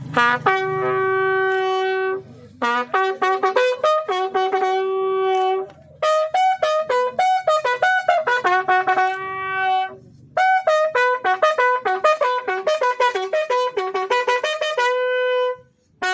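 Military bugle sounding a ceremonial funeral salute call. It plays four phrases with short pauses between them, long held notes mixed with quicker ones, all on the bugle's few open tones.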